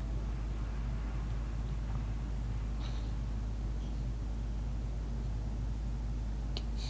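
Room tone: a steady low hum with a faint hiss and no distinct events.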